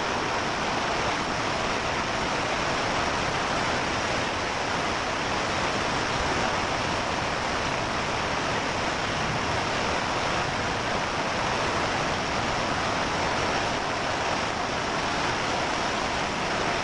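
Heavy rain with hail pouring down: a steady, dense hiss that does not let up.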